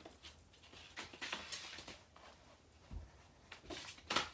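Rustling and clicking handling noises as the prop's plastic step pad and its cord are picked up and moved, with a dull thump about three seconds in and a sharper knock near the end.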